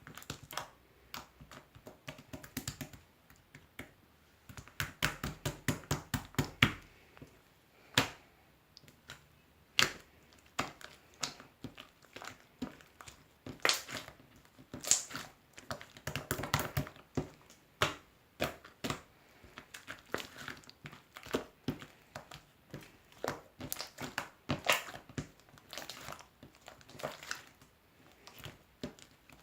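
Slime being squished and pressed by hand, giving a stream of irregular sharp clicking pops, coming in denser clusters at times.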